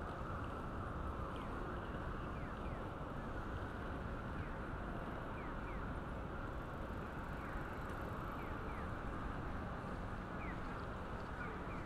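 Steady city street ambience: an even background of traffic and passing people, with brief faint high chirps scattered through.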